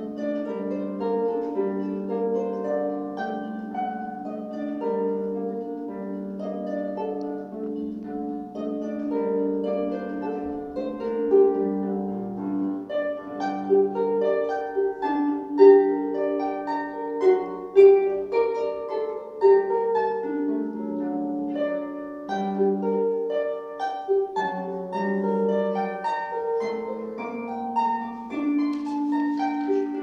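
Solo concert harp playing a rondo from a harp sonata: a lively, continuous stream of plucked notes, with a few louder accented notes around the middle.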